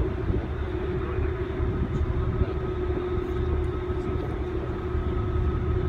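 Passenger ferry underway, its engines giving a steady low rumble and droning hum, with wind buffeting the microphone on the open deck.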